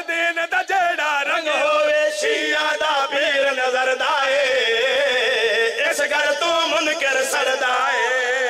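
A man chanting a devotional qaseeda in Punjabi/Urdu style, amplified through a microphone, drawing out long held notes with a wavering vibrato.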